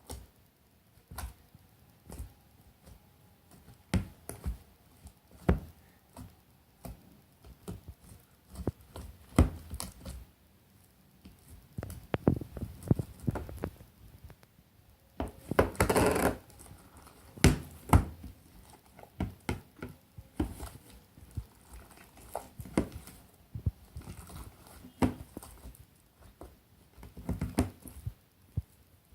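Sticky homemade glue-and-borax slime being kneaded and stretched by hand, giving irregular wet squelches and small pops, with a longer busier stretch of squishing about halfway through. The slime is still tacky, not yet fully activated.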